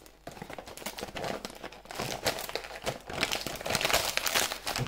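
Gift wrapping crinkling and rustling in irregular bursts as a present is unwrapped by hand.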